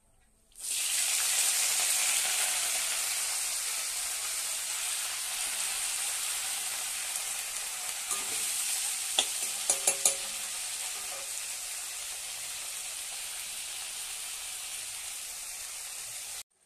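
Freshly washed chopped leafy greens dropped into hot oil in a kadai, bursting into a loud sizzle about half a second in that settles into a steady frying hiss and slowly fades. A few sharp clicks about nine to ten seconds in; the sizzle cuts off suddenly near the end.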